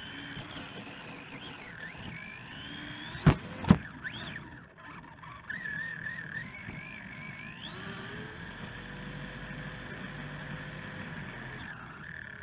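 Helion Animus 18SC RC short-course truck's electric motor whining, its pitch rising and falling with the throttle, over rolling noise from the pavement. Two sharp knocks, the loudest sounds, come close together about three and a half seconds in, and the whine climbs steeply near eight seconds as the truck speeds up.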